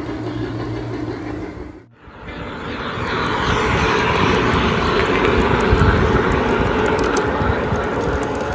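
G-scale model diesel locomotives leading a freight train close past on outdoor track, a steady engine-like drone with wheel noise that grows louder from about three seconds in. A brief drop in sound comes about two seconds in.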